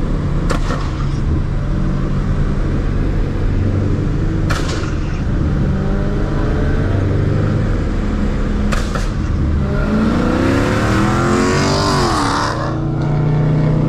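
Supercharged Corvette LS V8 running steadily at low revs, then revving up about ten seconds in and dropping back off about two and a half seconds later, with a hiss near the top of the rev. A few brief sharp sounds come a few seconds apart.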